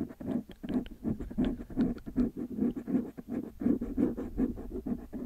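Quick, irregular scratching strokes close to the microphone, several a second in an uneven run.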